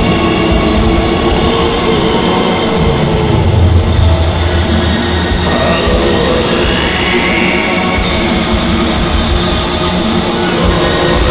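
Instrumental raw black metal: guitars and drums in a loud, dense, unbroken wall of sound, with a gliding tone rising in pitch about halfway through.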